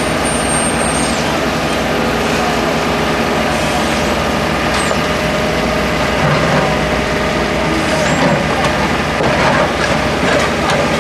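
Heavy construction machine engine running steadily under load, with a brief high squeal in the first second and scattered knocks and scrapes toward the end.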